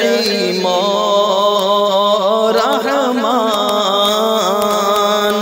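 Male voice singing a long, ornamented melodic phrase of an Urdu devotional nazm, its pitch wavering and gliding through the line.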